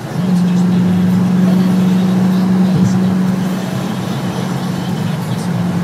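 Supercharged Chevrolet Camaro at steady freeway cruise, heard from inside the cabin: an even engine and exhaust drone over road noise.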